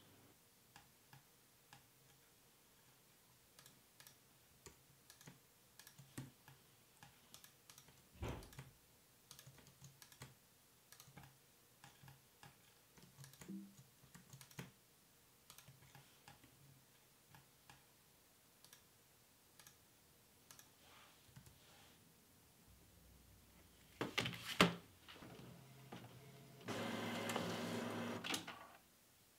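Faint, scattered clicks of a computer keyboard and mouse, a click or two a second with pauses. Near the end a Canon inkjet printer runs: a few sharp clacks, then about two seconds of steady mechanical noise as it prints.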